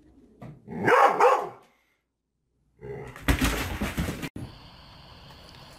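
Dog barking twice in quick succession about a second in. After a pause comes a loud burst of noise lasting about a second and a half.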